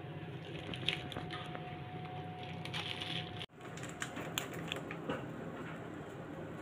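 Plastic piping bag crinkling, with small clicks, as butter cookie dough is squeezed out onto parchment paper, over a steady hum. The sound drops out for a moment a little past halfway.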